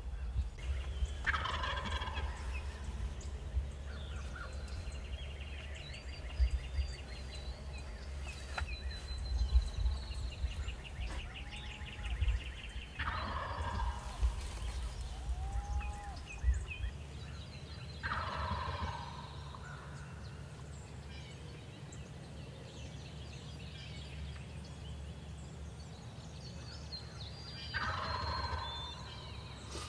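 Wild turkey gobbler gobbling four times, several seconds apart, each gobble a rapid rattling call about a second long.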